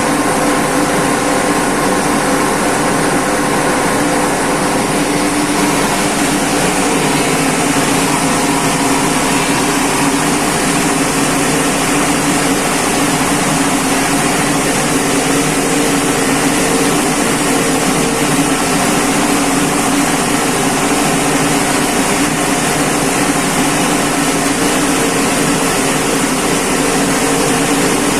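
Rice milling machine running with a loud, steady drone and an even mechanical hum that does not change.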